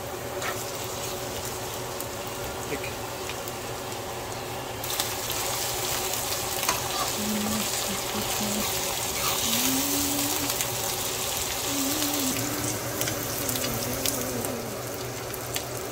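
Sliced onions with whole spices and ginger-garlic paste sizzling in hot oil in a frying pan: a steady hiss of frying. The sizzle grows louder and brighter about five seconds in and eases off near the end.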